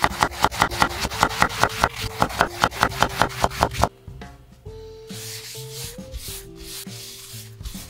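Kitchen knife slicing an eggplant into rounds on a wooden cutting board, quick even chops about five a second that stop just before four seconds in. Then a paper towel rubbing oil over a grill pan.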